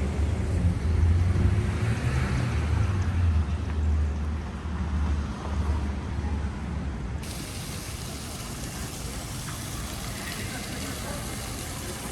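Low rumble of a moving vehicle's engine and road noise, which eases off about six seconds in.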